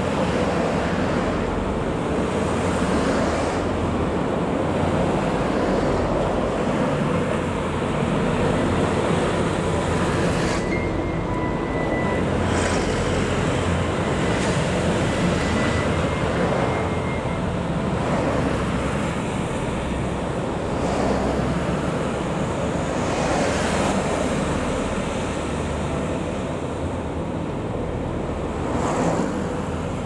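Steady roar of road traffic on a multilane city road, swelling every few seconds as cars and trucks pass one after another.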